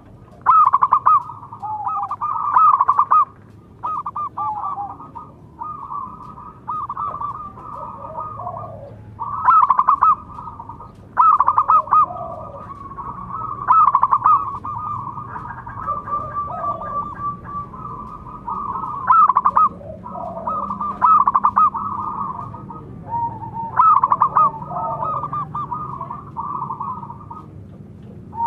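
Zebra doves (perkutut) cooing in repeated stuttering phrases, several birds calling back and forth so that the calls overlap and follow one another almost without a break.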